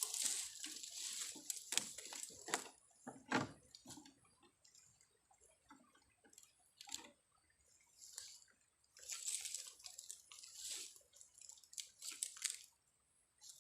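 Splashing and dripping water from a small stream, in irregular bursts of a second or so, with a steady high-pitched whine underneath.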